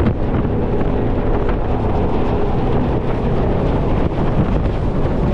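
Jet boat engine running steadily under way, with wind buffeting the microphone.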